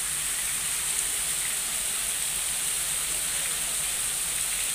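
Heavy rain falling steadily on corrugated roof sheets, with water pouring off the roof edges.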